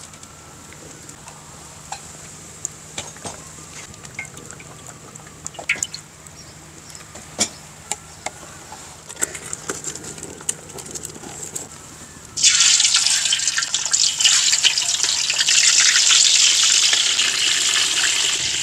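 Pieces of catfish go into hot cooking oil in a wok, and a loud, steady sizzle starts suddenly about twelve seconds in. Before that only faint scattered ticks and crackles are heard.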